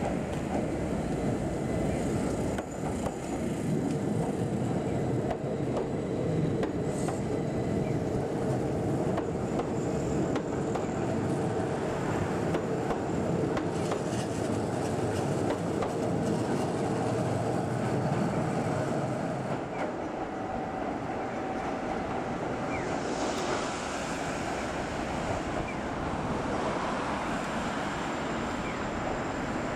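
Keihan 800 series electric train running on street-level track and passing close by: wheels on the rails and the traction gear, with a steady hum, heavy for the first two-thirds, then lighter as the train moves off.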